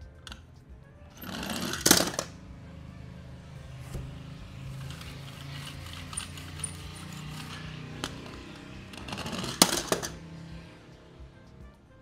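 Toy car packaging being opened and handled over background music: two loud rustling bursts, about two seconds in and again near the end, with scattered clicks of plastic.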